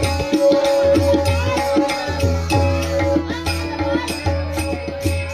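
Instrumental bhajan accompaniment: tabla strokes in a steady rhythm under a long held note.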